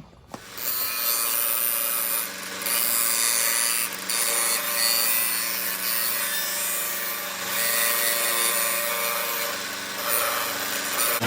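A chainsaw guide bar's rails being dressed on a running power tool: a steady motor hum with a loud, continuous rasping grind that eases off briefly a few times as the bar is lifted and set back on.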